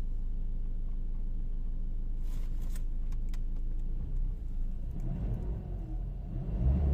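Ford Ranger's diesel engine running steadily at idle, now starting and running after its no-start fault was fixed. A few faint clicks come a couple of seconds in, and from about four seconds in a louder, uneven low rumble rises over the idle.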